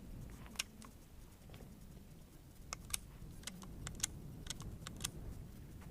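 Sharp metallic clicks and rattles from a rifle's bolt and action being worked by hand, about a dozen in irregular clusters, mostly in the second half. A cartridge is stuck in the rifle.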